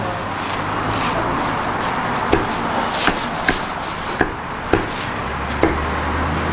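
Meat cleaver chopping through a grilled chicken on a thick wooden chopping block: about six sharp, irregular chops in the second half, over a steady background of street noise.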